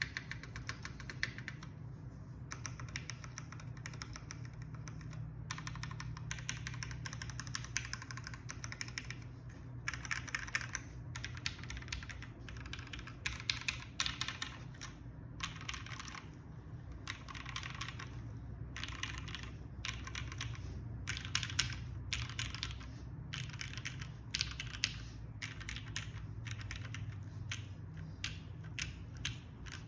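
Typing on a Lamy TKL mechanical keyboard with lubed Gateron Mizu Mink switches on an aluminium plate, O-ring mounted, with GMK keycaps: quick runs of keystroke clicks with short pauses between them.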